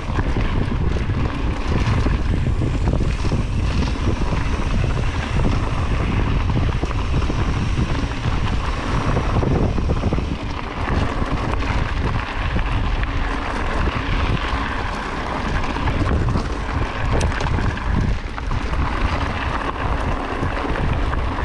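Wind rushing and buffeting over the camera microphone of a mountain biker riding a flow trail, a steady low rumble with an even hiss above it.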